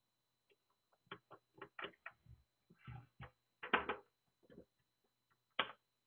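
Irregular small clicks and knocks of parts being handled against an NVR's metal case while a hard drive's screw holes are lined up and a screwdriver is set to a screw. The louder knocks come near the middle and just before the end.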